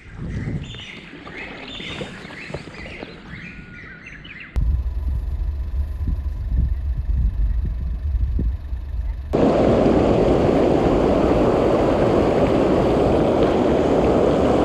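Small birds chirping in short high calls. About four and a half seconds in it cuts to a low rumble of wind on the microphone. Near the middle it cuts again to a mountain stream rushing loudly and steadily over rocks.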